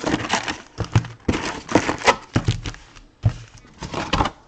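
Irregular taps and knocks from a cardboard trading-card box and its packs being handled.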